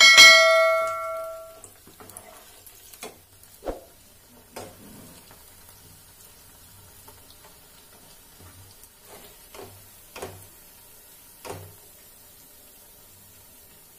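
A single bell-like chime rings at the start and fades away over about a second and a half. After it, food deep-frying in oil in a kadhai sizzles faintly, with a few knocks of a metal slotted spoon against the pan.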